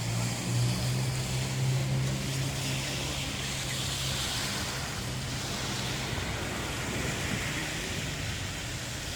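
Heavy rain falling with a steady hiss, with a vehicle engine humming underneath that fades about six seconds in.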